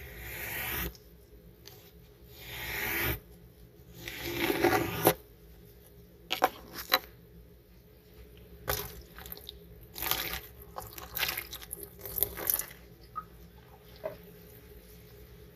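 A miniature squeegee pushed through soapy water over a tiny wet carpet: three wet swishing strokes in the first five seconds, each building and then stopping sharply. After that come scattered light clicks and taps.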